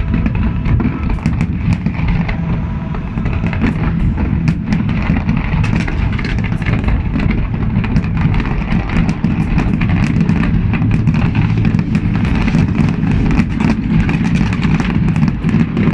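Aerial fireworks going off: continuous low booms under dense, rapid crackling.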